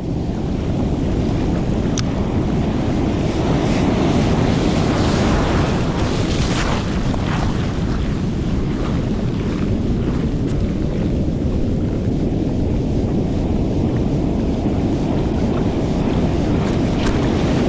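Ocean surf washing and breaking on the beach, with steady wind buffeting the microphone.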